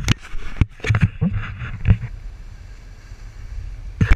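Knocks and scrapes from a GoPro action camera being handled and repositioned: several sharp knocks in the first two seconds, a couple more near the end, over a low rumble of wind on the microphone.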